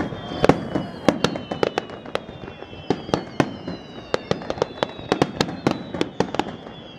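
Aerial fireworks display in a rapid, irregular barrage of sharp bangs, several a second, as many shells burst at once.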